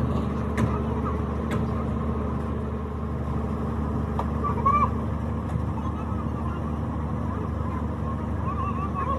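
A steady low machine hum with a few light clicks and faint wavering voices in the background.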